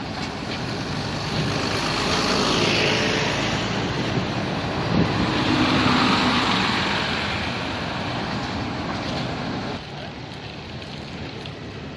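City buses in street traffic: a Volvo double-decker bus and then a second bus pass close by, their engine and tyre noise swelling twice as they go past. Near the end the sound drops suddenly to lighter traffic.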